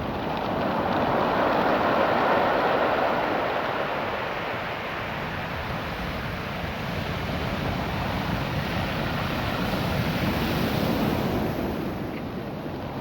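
Ocean surf washing up and back over a beach of small rounded stones, the water rattling through the cobbles. The wash swells about a second in and again, less strongly, near the end.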